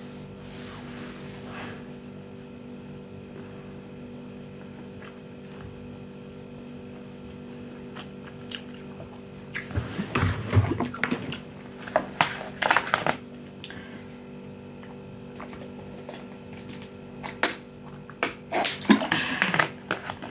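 A clear plastic water bottle being handled, crinkling and clicking in two bursts, one about ten seconds in and one near the end, over a steady background hum.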